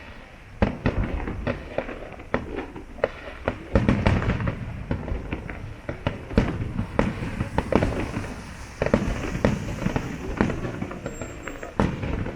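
Aerial fireworks bursting in quick, irregular succession: many sharp bangs and crackling reports over a continuous low rumble, with denser volleys about four seconds in and again near nine seconds.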